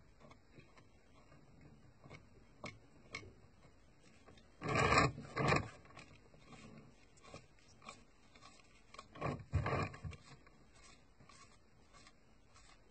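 Quiet handling of a small paintbrush working oil paint over a plastic scale model, with faint scattered taps and rubs. Twice a short, louder noise, each in two quick parts, about five seconds in and again near ten seconds.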